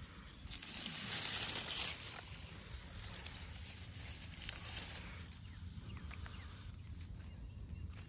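Rustling and scraping of iris leaves and soil as a clump of bearded iris is gripped and pulled apart by hand, loudest from about half a second to two seconds in, then lighter and fading after about five seconds.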